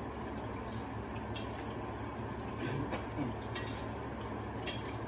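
Egg-battered broccoli frying in oil in a skillet, a steady sizzle, with a few light clinks of a metal fork against the pan as the pieces are turned to brown on both sides.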